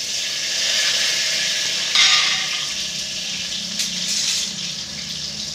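Tomato, garlic and onion frying in hot oil in a pressure cooker, a steady sizzle that swells sharply about two seconds in.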